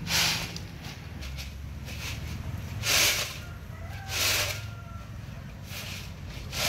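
Dry beans winnowed on a round metal tray: tossed up and caught again and again, each catch a short rattling swish, about five times at irregular intervals of a second or two.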